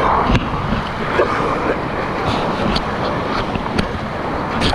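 Whitewater rapid rushing loudly around a kayak, with water splashing against the boat and the camera microphone. Several sharp splashes cut through, the strongest about half a second in and again near the end.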